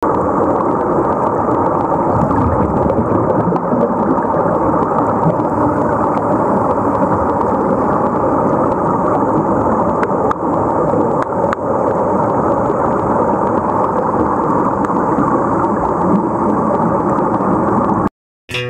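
Steady, dense underwater rushing and bubbling from air venting out of sea-walk diving helmets, heard through a camera underwater, with a few faint clicks. It cuts off suddenly near the end.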